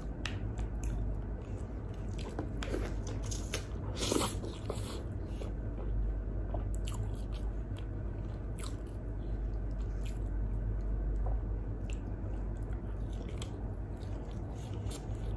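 Close-miked chewing and biting of grilled chicken: soft wet mouth sounds and irregular short clicks, with a louder bite about four seconds in.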